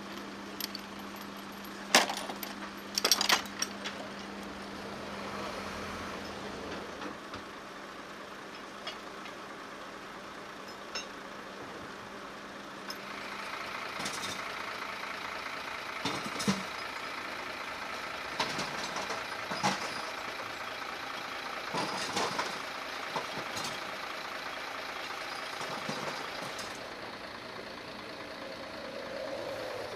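Heavy diesel engines of recovery vehicles running steadily, with scattered sharp metal clanks and knocks from work on a burned-out truck. The loudest clanks come a couple of seconds in. A busier machine sound sets in about halfway through.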